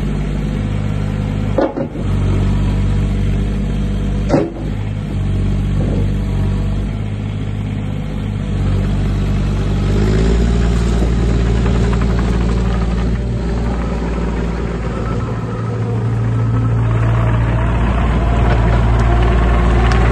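JCB 8030 ZTS mini excavator's diesel engine running under hydraulic load as the arm and bucket work; the engine note steps up in pitch and gets louder about halfway through, and louder again near the end. Two sharp knocks sound in the first few seconds.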